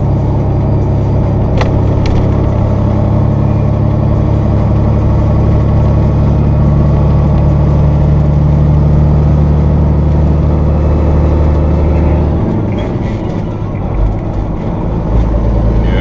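Peterbilt 379 truck's diesel engine running steadily at highway speed, heard inside the cab. About twelve seconds in, the engine note drops and dips in loudness, then settles at a lower pitch.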